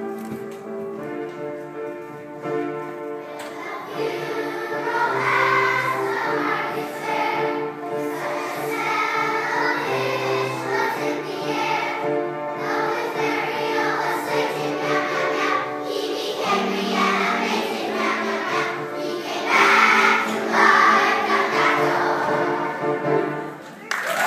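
A choir of young children singing together over an instrumental backing. The accompaniment plays alone at first and the voices come in about four seconds in.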